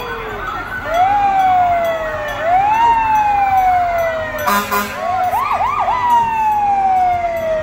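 Fire engine siren wailing, repeatedly rising quickly in pitch and falling away slowly, with more than one siren overlapping. A short blast cuts in about halfway through.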